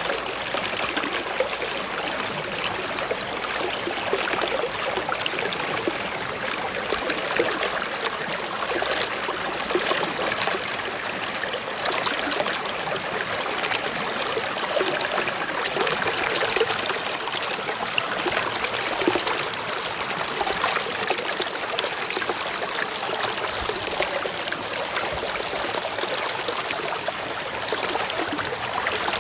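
Stream water flowing and trickling over stones, a steady bubbling rush with fine splashing detail.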